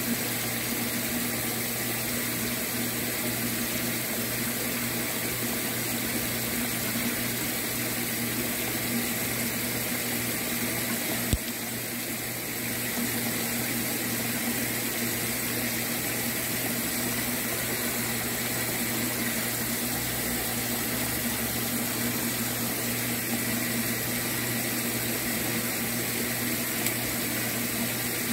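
Steady rush of water with a low, even hum from a pump circulating water in a tilapia tank, and a single click about eleven seconds in.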